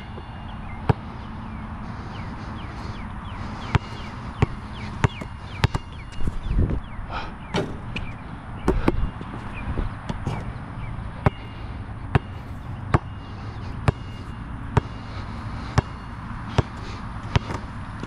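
A Molten BG3800 basketball bouncing on an outdoor court: sharp single bounces, roughly one a second at an uneven pace, over a steady low rumble.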